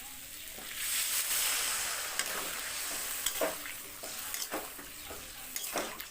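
Water poured into a pan of hot frying curry masala (tomato and cashew paste with peas and potatoes in mustard oil), hissing and sizzling from about a second in. A spatula scrapes the pan several times as it is stirred.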